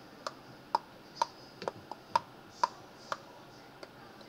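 A run of sharp clicks at a computer, about two a second, the last of them a little before the end.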